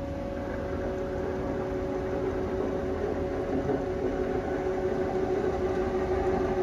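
Haas TL3 CNC lathe's cross slide traversing under power, a steady mechanical hum with a couple of held tones.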